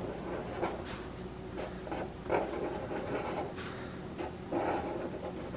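Felt-tip permanent marker drawing on cardboard in a series of short scratchy strokes, sketching small light-bulb shapes.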